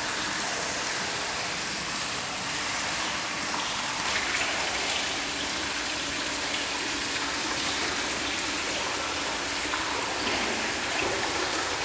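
Steady rush of running water, with a faint steady hum underneath.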